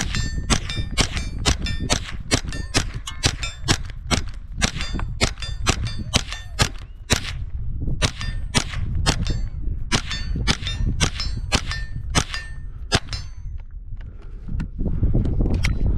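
HK MP5 .22LR rifle fired in a quick string of single shots, about two or three a second, with a brief ringing tone after some cracks. The string stops near the end. A steady low rumble runs underneath.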